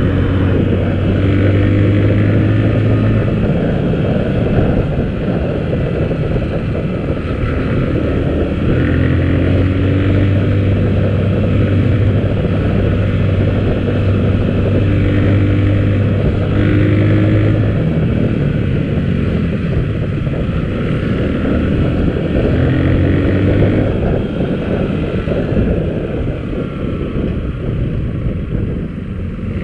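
Motorcycle engine running while being ridden, its note changing pitch several times as the speed changes, with wind rushing over the microphone.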